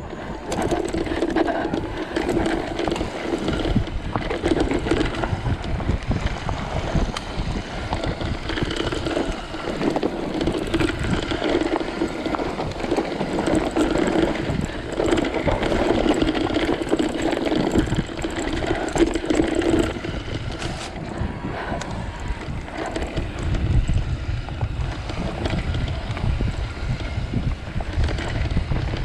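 Electric mountain bike ridden along a narrow singletrack dirt trail: tyre and frame noise, with wind buffeting the microphone, heaviest near the end.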